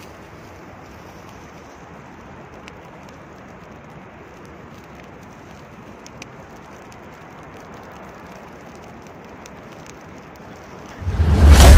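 Forest fire burning: a steady rush with scattered faint crackles. Near the end a sudden loud boom cuts in.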